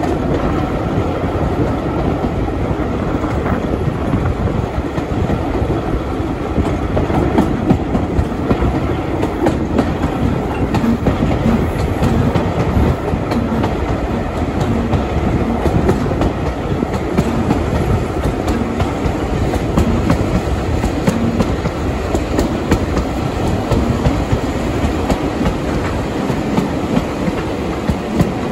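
Passenger train hauled by a Class 31 diesel locomotive running along the line: a steady rumble, with the wheels clicking over rail joints.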